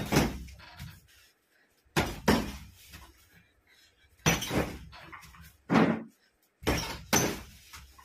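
Boxing gloves hitting a hanging punching bag: about nine sharp thuds, mostly in quick one-two pairs, each with a short rattling trail.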